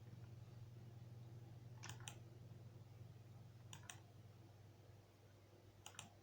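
Three faint double clicks, each a quick click-click, about two seconds apart, over a low steady hum.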